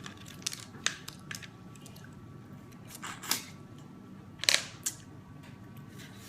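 Someone eating small spiral snails, sucking the meat out of the shells: a few short, sharp slurps and clicks, the loudest two coming about three and four and a half seconds in.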